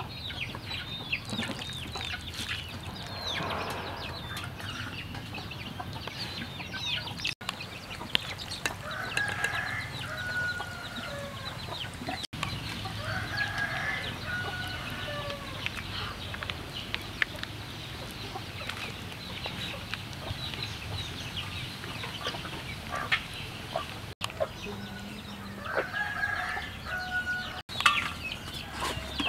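Chickens clucking, with longer rooster-like calls about a third of the way in, near the middle and near the end, and many short high chirps throughout.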